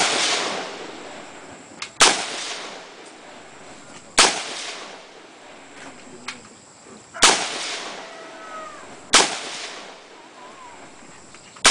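AR-15-type rifle fired in slow, deliberate single shots: four shots two to three seconds apart and a fifth at the very end, each followed by an echo that fades over about a second.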